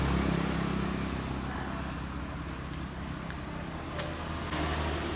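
A motor vehicle's engine running with a low steady hum that eases off over the first couple of seconds and picks up again near the end.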